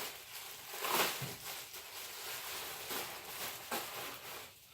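Rustling and crinkling as paper towels are handled, with louder crinkles about a second in and again near three seconds.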